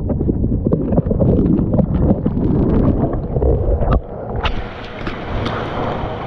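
Muffled underwater churning and bubbling of a swimmer moving through pool water, with small clicks and knocks. About four seconds in, the camera comes up through the surface and the sound turns brighter: open-air splashing and lapping of the pool water.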